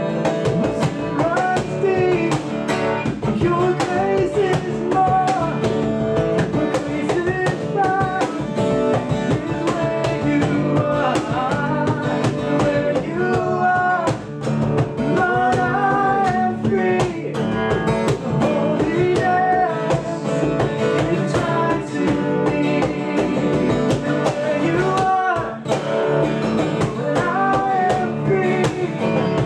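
Live acoustic worship song: a strummed acoustic guitar and a cajon beat, with two men singing the melody together.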